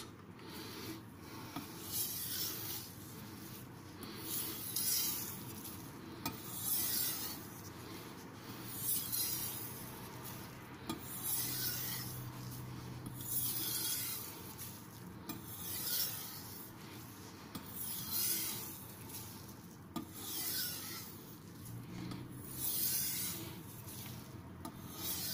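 A white-steel (Shirogami) nakiri blade being stroked back and forth on a wet King 6000-grit finishing water stone. It makes a hissing, rasping rub in slurry, about one stroke every two seconds, as the edge is given its final sharpening.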